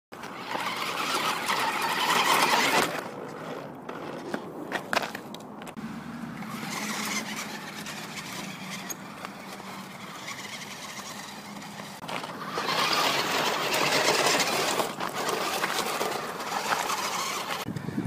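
New Bright remote-control toy car's electric motor whining in surges as it churns through mud and slush, loudest near the start and again in the last third, quieter in between.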